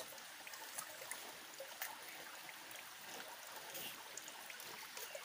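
Faint, steady trickling of a small stream, with a few light clicks from knives working the taro corms.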